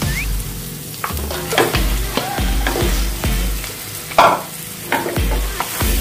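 Plastic spatula stirring and scraping mashed boiled potatoes into a spice mixture in a hot nonstick frying pan, with a light sizzle underneath. The scrapes come irregularly, the loudest about four seconds in.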